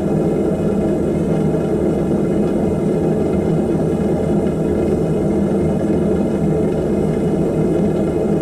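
Propane-butane gas burner of a small homemade forge running at full flame: a steady, unbroken rushing noise with no change in pitch or level.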